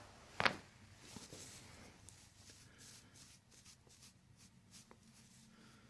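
One brief sharp crack about half a second in as the chiropractor thrusts on the patient's upper back during her exhale, then faint crinkling of the table's paper face cover as she shifts.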